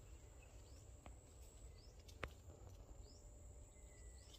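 Near silence: faint outdoor ambience, with a short high chirp repeating about once a second and a single sharp click a little past halfway.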